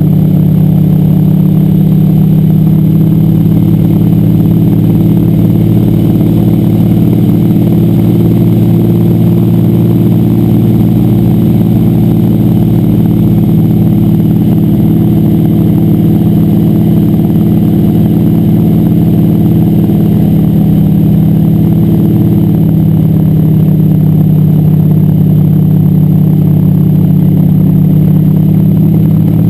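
Floatplane's piston engine and propeller running steadily, loud from inside the cockpit, as the plane moves across the water for takeoff.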